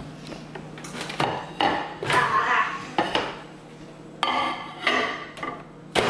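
A ceramic plate knocking and clattering as it is carried and set inside a countertop microwave, with the microwave door opening and then shutting with a sharp clack near the end.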